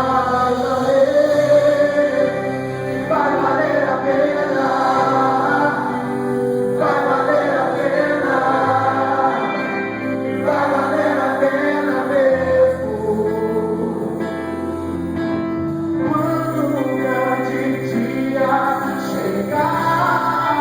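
Church praise group singing a Portuguese gospel worship song, several voices together over an instrumental accompaniment with long held bass notes.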